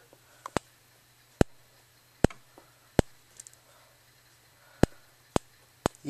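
Sharp, irregularly spaced clicks, about seven, as a power lead is tapped against the wire of a Simplex TrueAlert strobe, making and breaking contact. Each tap pulses the strobe, which is stuck in smart sync mode.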